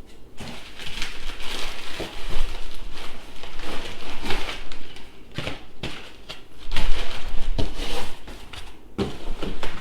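Packing material rustling and crinkling in irregular bursts, with a few light knocks, as parts are dug out of a shipping box.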